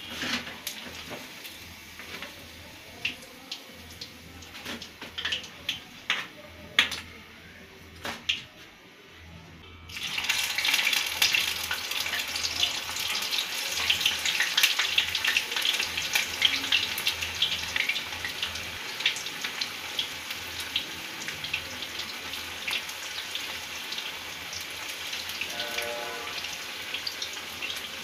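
Battered cauliflower florets deep-frying in hot oil in a kadai: a light sizzle with a few sharp clicks, then about ten seconds in the oil bursts into a much louder, dense crackling sizzle as a fresh batch of raw battered florets goes in, easing a little towards the end.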